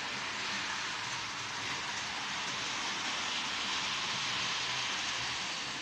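H0-scale model train, a Piko BR218 diesel locomotive pulling its wagons, running steadily on the layout's track, a constant whirr of motor and wheels on rail.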